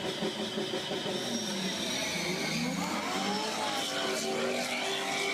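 Diesel engine of a Peterbilt semi truck and a Chevrolet Corvette's engine running at a drag-race start line, the pitch swinging up and down as they rev from about three seconds in.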